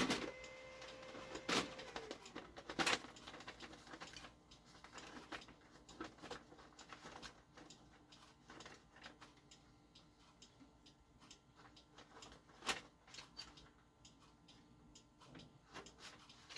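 Brother HL-2240 laser printer running, with a faint steady hum and a string of irregular light clicks broken by a few louder knocks, the thumping of its paper-feed drive, which the owner places somewhere other than the toner cartridge or fuser roller.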